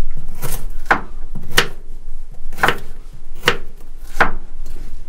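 A kitchen knife chopping food on a cutting board: about seven slow, separate strokes, roughly one every three-quarters of a second.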